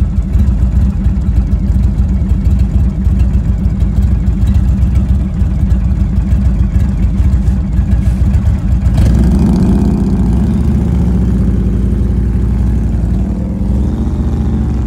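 Motorcycle V-twin engine idling close by with a steady low throb, then revving up and accelerating about nine seconds in as the bikes pull away.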